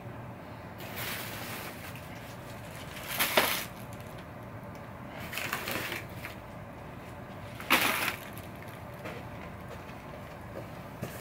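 Plastic packaging rustling and crinkling as it is handled, in four short bursts. The loudest comes about three seconds in and another near eight seconds.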